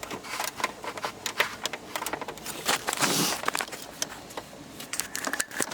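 Hard plastic clicking and scraping as a dashboard sensor is twisted and pushed back into place through a plastic dash cover, with a louder rubbing scrape about three seconds in.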